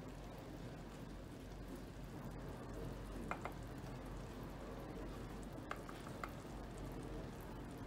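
Strawberry jam bubbling at a low boil in a stainless steel pot, faint and steady, with a few light clicks of a wooden spoon as the foam is skimmed off into a glass cup.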